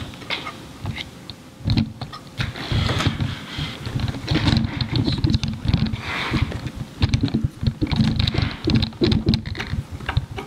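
Hands handling and seating a diaphragm pump in a sheet-metal housing: quick, irregular clatter, small knocks and rustling of metal parts and hose, with a brief knock at the start.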